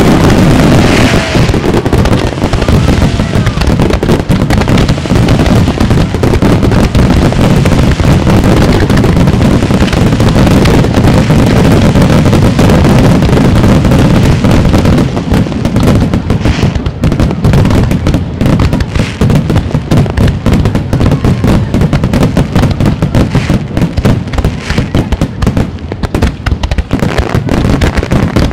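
A rapid barrage of firework shells bursting overhead, with ground fountains firing beneath them. The booms follow so closely that they merge into a continuous rumble, and sharp crackling grows denser in the second half.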